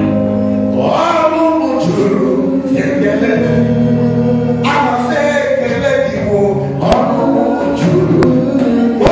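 Gospel praise singing in church, voices over a steady low accompaniment, with a few sharp percussive knocks near the end.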